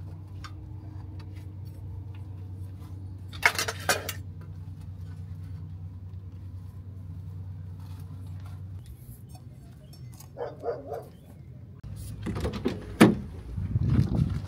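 A steady low hum with one loud clatter of dishes about four seconds in. Near the end, knocking and rustling as a soft cooler and bags are handled in a car's cargo area.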